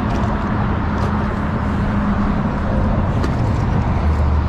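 Steady rumble of road traffic with a low, even hum underneath.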